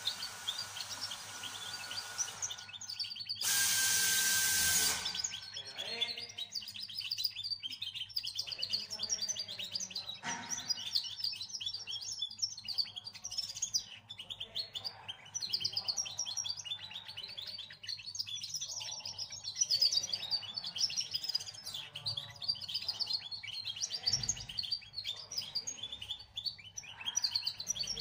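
A two-month-old songbird singing a long, rapid twittering song of many quick chirps. About four seconds in, a loud hiss lasts about a second and a half.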